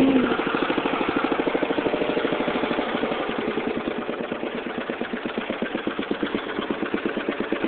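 Lawn Chief 12-39 riding mower's engine running with an even, rapid putter, its level easing off a little midway and coming back up near the end.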